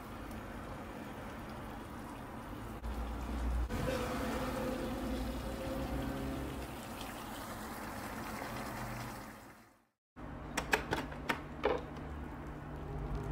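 Spicy braised pork ribs simmering in a cast-iron skillet over a gas flame, a steady hiss of liquid with a louder stretch about four seconds in. The sound fades out just before ten seconds in, and a few sharp clicks follow.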